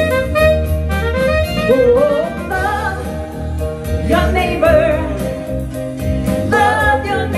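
Upbeat gospel song: a woman's voice sings wordless ad-libs over digital piano and a steady bass accompaniment.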